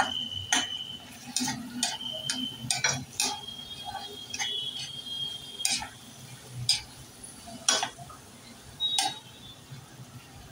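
Yellow plastic spatula stirring and scraping a sautéing onion-tomato mix in a stainless-steel kadhai: irregular taps and scrapes against the steel, with short high squeaks now and then.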